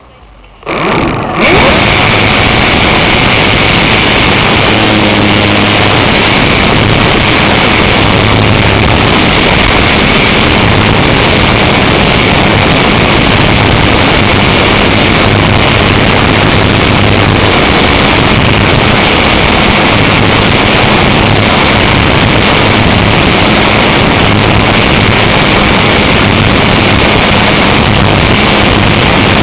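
Electric motor of a foam RC Cessna 182 model, an E-max brushless outrunner driving a 9x5 propeller, spinning up about a second in and then running steadily at high throttle. It is heard from a camera pen fixed to the model's windscreen, so the motor whine and propeller wash are loud and close.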